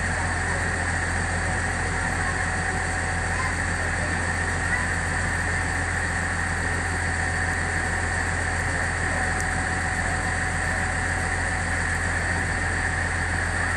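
Passenger boat's engine running steadily, a constant low hum with an even wash of noise over it, heard from the deck.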